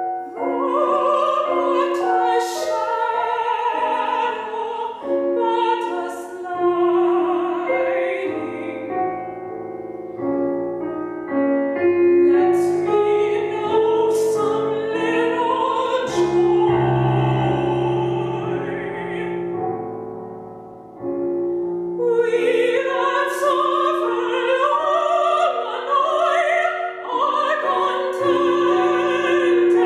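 A woman singing a classical art song in an operatic style with a strong vibrato, accompanied by grand piano. The voice drops back to a quiet passage about two-thirds of the way through, then comes in again at full strength.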